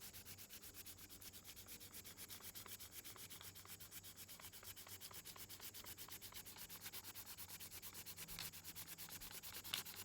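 Hand sanding of wooden revolver grips with 180-grit sandpaper wrapped on a sanding block: quick, even back-and-forth strokes along the grain, about four to five a second, taking off the old finish. A light tap near the end, then the strokes stop.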